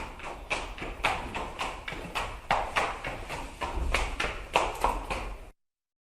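Hooves of a running horse striking the ground in a fast, steady galloping rhythm. The sound cuts out abruptly to silence about five and a half seconds in, then the hoofbeats start again just before the end.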